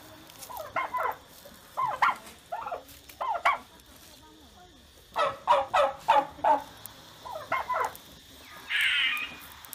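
A fowl-like bird calling in quick runs of about three to six notes, repeated several times. A brief scratchy noise comes near the end.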